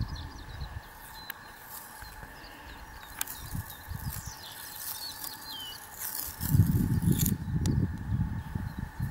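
Open-country ambience: faint bird chirps, then wind gusting on the microphone in a loud low rumble from about two-thirds of the way in.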